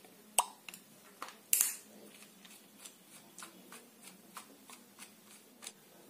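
Screwdriver working the housing screws out of a table fan motor: a run of small sharp clicks and metal taps, about two or three a second, with a loud click about half a second in and a short scrape about a second and a half in.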